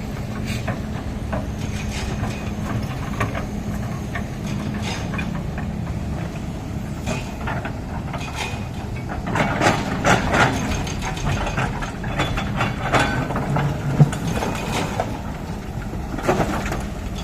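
Excavator's diesel engine running steadily, with scattered metallic clanks and knocks that grow busier about ten seconds in, and one sharp knock a little later.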